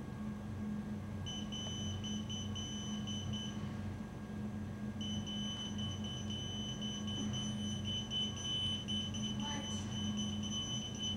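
Pagers going off with a high-pitched electronic beep: rapid pulsed beeps start about a second in, stop briefly, then resume almost continuously from about five seconds in. A steady low hum runs underneath.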